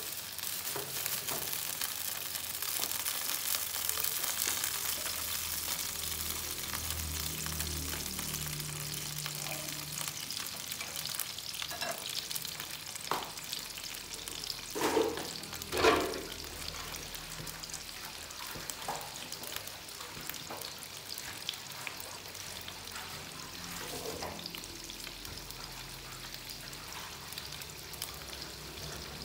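Pieces of steamed bun and potato sticks sizzling in shallow oil in a nonstick frying pan. The sizzle is strongest in the first several seconds, as the pieces go in, and slowly dies down. Two brief louder knocks come about halfway through.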